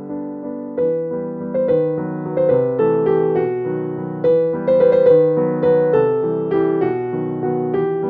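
Background piano music: a calm melody of separate struck notes, each fading after it is played, roughly two notes a second.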